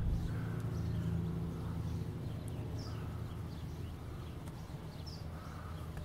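Quiet outdoor ambience: a low, steady rumble on the microphone, with a few faint, short high bird chirps about halfway through and near the end.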